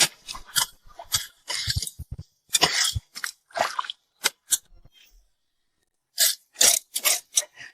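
Digging in wet tidal-flat sand and mud for shellfish: a series of short, irregular crunching scrapes, with a pause of about a second and a half near the five-second mark.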